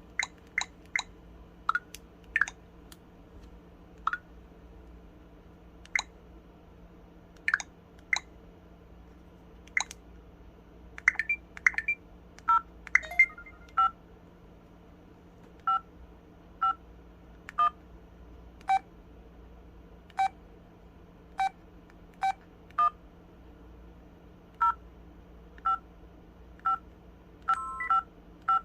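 Samsung SPH-W8350 flip phone's keypad sound effects: short electronic beeps as keys are pressed one at a time at irregular intervals, many of them two-tone, telephone-dialing style, with a quicker run of beeps about halfway through.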